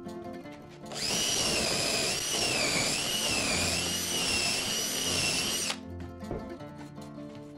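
Hand drill boring a dowel hole into a pine board through a doweling jig, running for about five seconds with a high whine that wavers in pitch as the bit cuts, then stopping abruptly.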